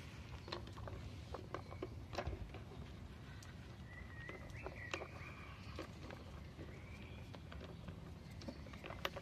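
Beagle puppies scuffling on a chain-hung swing platform: scattered light taps and clicks of paws and claws and the platform's chains. A faint, wavering high squeak comes about four to five seconds in.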